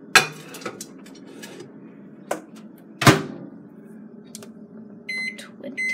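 Microwave oven being loaded and set: a click at the start and a loud clunk about three seconds in as the door is shut, then short high keypad beeps near the end as the time is entered.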